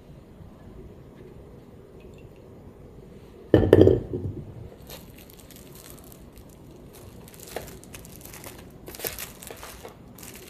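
Halved new potatoes knocking down into a glass dish, one loud clunk about a third of the way in. Then plastic cling film crinkling in repeated bursts as it is pulled out and stretched over the dish.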